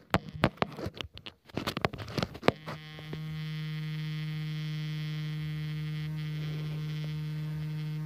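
A few sharp clicks and knocks, then a steady electrical hum that starts about three seconds in and holds unchanged, a low tone with many overtones above it.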